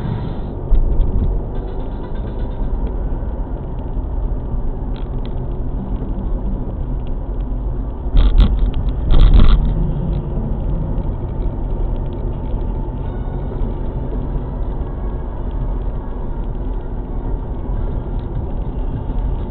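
Car driving on a wet road, heard inside the cabin: a steady low road rumble, with two short, loud clattering bursts about eight and nine seconds in.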